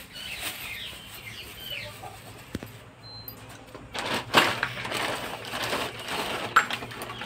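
Plastic bag rustling and crinkling as hands dig through it, in a run of crackles loudest in the last three seconds, after a quieter start with small clatters of tools being set down.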